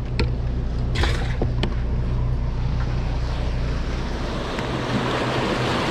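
A boat motor running with a steady low hum, with a few light knocks about a second in. About four and a half seconds in the hum fades under the rushing of turbulent water churning out below the dam.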